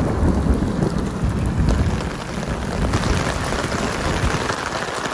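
Heavy rain pouring down in a thunderstorm, a dense steady hiss. A low rumble of thunder runs through the first couple of seconds, and the hiss of the rain grows stronger after about three seconds.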